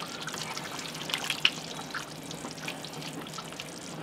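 Pork stew bubbling in a cast-iron Dutch oven, with a wooden spoon stirring through it and a few soft clicks of the spoon against the pot about a second in.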